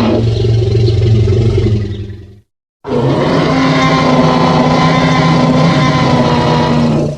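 Tyrannosaurus rex roar sound effect: a deep roar that fades out about two seconds in, a short silence, then a second long, steady roar lasting about four seconds that drops away near the end.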